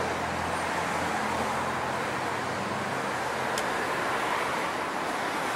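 Street traffic noise with a vehicle engine humming at a low steady pitch; the hum fades out about halfway through. A single brief high tick sounds a little past halfway.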